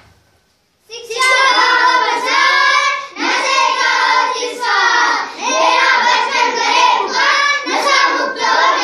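A group of young children singing loudly together in unison, starting about a second in, in phrases with short breaks between them.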